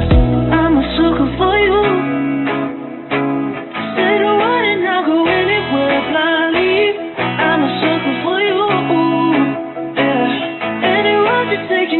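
Music: a pop song with strummed acoustic guitar and a woman singing.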